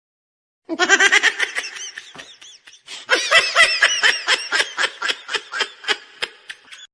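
A laughter sound effect: a burst of rapid ha-ha laughing, a short break, then a longer run of laughing whose beats fade and thin out toward the end.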